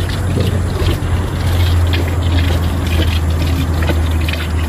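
Spring water flowing continuously, a loud, steady rush and splash of running water.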